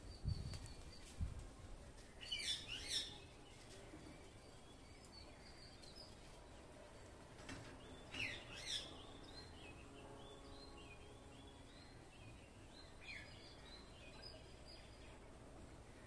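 Rose-ringed parakeet giving short bursts of calls a couple of seconds in and again about eight seconds in, followed by softer, quieter chattering notes. A few low thumps come in the first second or so.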